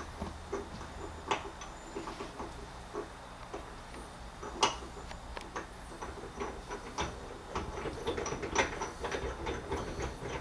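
Chrome spoke handle being threaded into a gun safe's handle hub by hand: irregular small metal clicks and taps, the sharpest about halfway through and a quicker run of clicks near the end, over a steady low hum.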